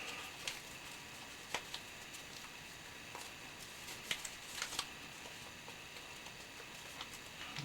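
Paper being handled during origami work: faint rustling with a few short, sharp ticks, clearest about four to five seconds in.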